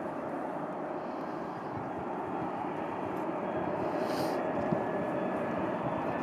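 Jet engines of an approaching Boeing 747 on final approach: a steady rumble and whine that slowly grows louder, with a brief hiss about four seconds in.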